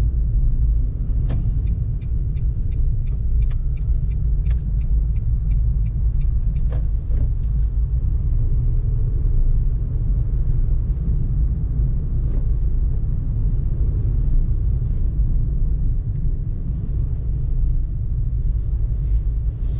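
Car driving, heard from inside the cabin: a steady low rumble of engine and road noise. During the first few seconds a run of regular ticks comes about three a second.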